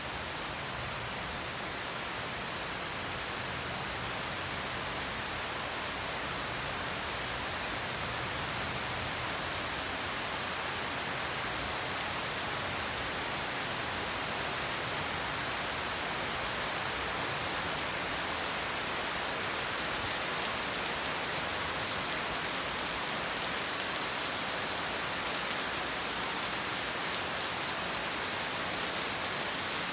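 Steady rain falling on a swimming pool and wet tiled terrace: an even hiss that grows slightly louder over time, with sharper close raindrop ticks in the later part.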